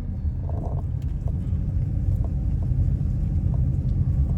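Car driving, a steady low rumble of engine and tyres heard from inside the cabin, with a few faint ticks over it.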